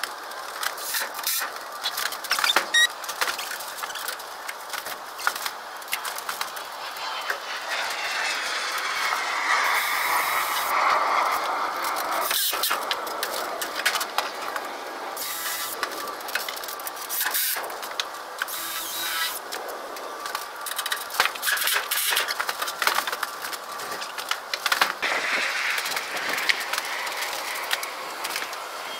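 Irregular knocks, clicks and clatter of wood being handled and worked, with a longer rougher stretch about ten seconds in.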